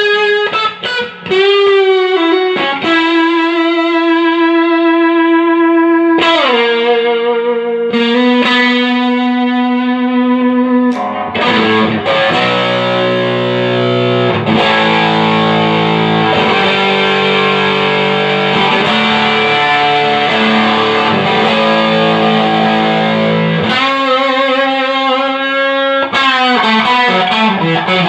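Electric guitar played through a Fender Hot Rod Deluxe, a 40-watt all-tube combo amp, after a repair of hum, buzz and power loss. It opens with held single notes that bend and waver, turns to a dense passage of chords about eleven seconds in, and goes back to single notes near the end.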